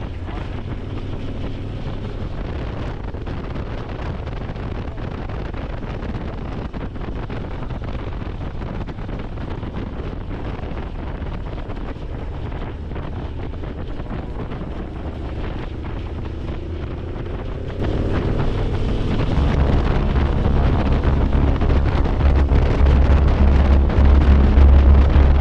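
Wind rushing over the camera microphone with a motorcycle engine running underneath, the sound of riding at road speed. About two-thirds of the way in the sound abruptly gets louder and a deep, steady bass comes in.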